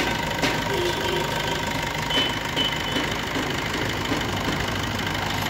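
Maruti Suzuki Swift's 1.3-litre DDiS diesel engine idling steadily with the usual diesel clatter. It has just been restarted after a diesel filter change, with the air bled from the fuel line.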